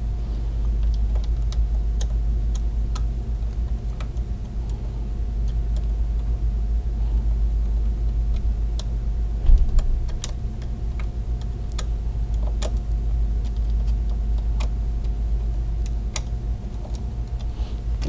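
Faint scattered clicks and taps from a small screwdriver and wires being worked into the screw terminals of a DSC alarm keypad, with one louder bump about halfway through. A steady low hum runs underneath.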